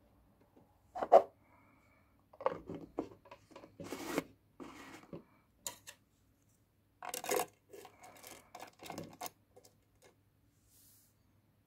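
Irregular scraping and rubbing with a few light knocks, as of objects being handled, starting about a second in and dying away near the end.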